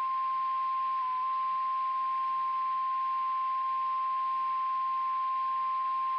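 NOAA Weather Radio warning alarm tone: one steady, unbroken high tone, the signal that a weather alert message is about to follow.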